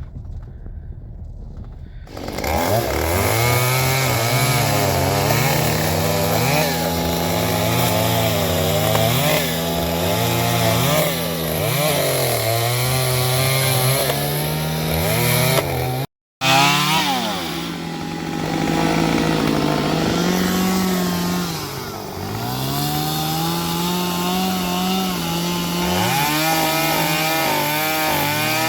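Gas chainsaw running at high revs while cutting a fallen tree across the road. It starts about two seconds in, and the engine pitch repeatedly sags under load in the wood and climbs back. The sound cuts out for a moment partway through, then the saw carries on.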